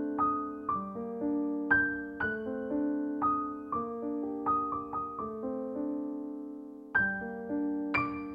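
Background piano music: a gentle melody of struck notes that ring and fade, about two notes a second, with one note held longer before a new phrase begins near the end.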